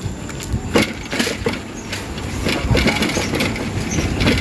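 Bicycle ridden over a rough surface: a cluster of sharp rattles and knocks about a second in and scattered clicks later, over a steady low rumble of road and wind noise.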